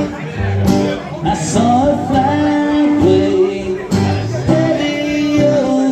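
Live band music: acoustic guitar strumming with a held, gliding melody line over it.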